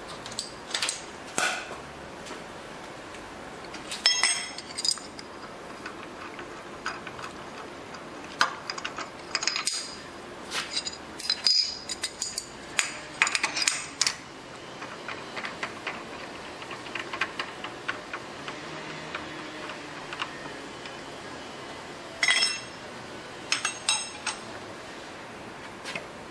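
Metal tools and small steel parts clinking and clattering as they are handled: sharp, ringing knocks in short clusters, with quieter stretches between.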